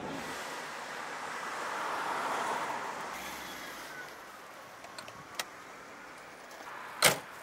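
Street background noise, then a few small clicks of a key and handle at the door lock of an older Opel saloon. Near the end comes one loud bang as the car door is shut.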